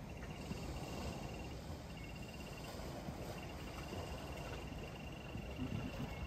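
A cricket trilling, a fast even pulse on one high note in runs of about a second with short breaks, over a low, steady rumble.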